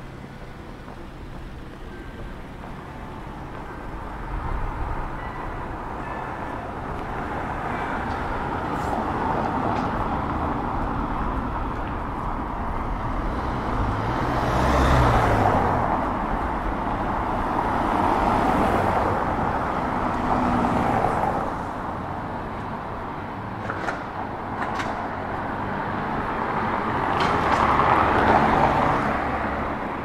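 Street traffic: several cars passing one after another, each swelling and fading away, over a steady background hum of the city. The passes are loudest about halfway through and again near the end.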